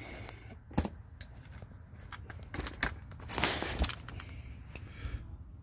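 Tools and plastic tool cases being handled: scattered clicks and light knocks, with a brief rustling scrape about three and a half seconds in.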